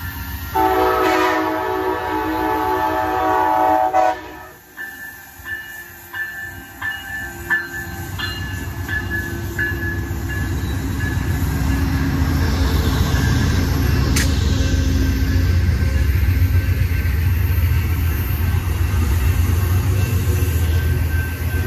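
Amtrak passenger train sounding one long horn blast of about three and a half seconds, then a grade-crossing bell dinging as the diesel locomotives come up and pass close by. The locomotives are followed by a steady rumble and rail clatter from the bi-level passenger cars rolling past.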